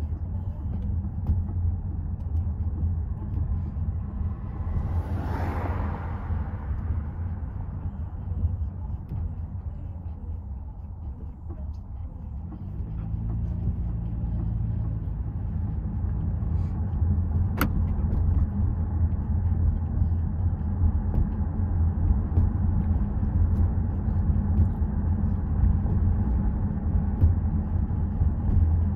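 Steady low road rumble of a moving car heard from inside the cabin, tyres and engine. A brief whoosh swells and fades about five seconds in, and a single sharp click sounds a little past the middle.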